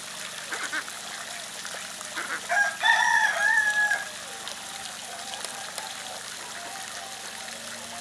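A bird's single loud, drawn-out call with a stepped pitch, lasting about a second and a half and starting about two and a half seconds in.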